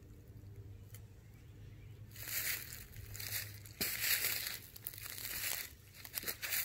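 Footsteps crunching through dry dead leaf litter, starting about two seconds in at roughly one step a second.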